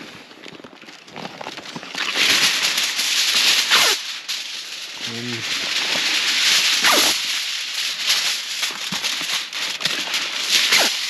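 Aluminium foil crinkling and rustling as it is handled and folded into a packet, a dense run of loud crackles starting about two seconds in.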